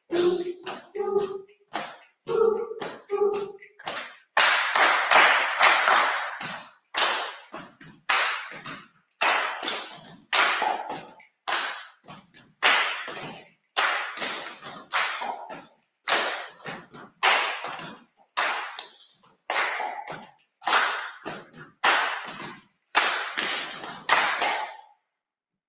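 Group body percussion: a few short sung syllables at first, then rhythmic rounds of hand claps and slaps on the chest and body. It stops suddenly near the end.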